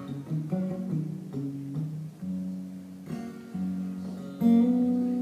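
Acoustic guitar played solo: a slow series of picked notes and chords that ring on, with a louder chord about four seconds in.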